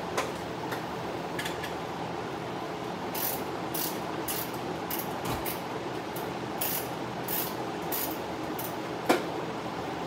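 Steady whir of a large drum fan. Over it come irregular, short metallic clicks and taps from hand work on the engine, with one sharper knock near the end.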